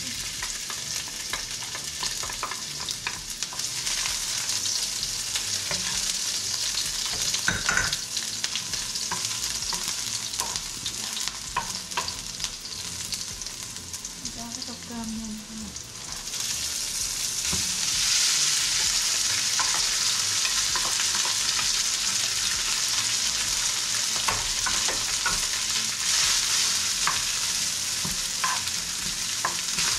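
Onions sizzling in hot oil in a frying pan, with a utensil scraping and clicking against the pan as they are stirred. The sizzle grows louder a little past halfway through.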